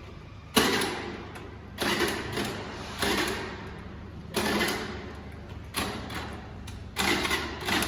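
Scooter's electric starter cranking in about six short bursts, roughly one a second, each starting suddenly and fading, without the engine catching: a cold no-start.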